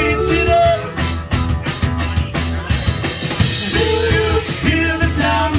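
Live rock band playing: a drum kit keeps a steady beat under electric guitar and electric bass, with a male voice singing over it near the start and again in the second half.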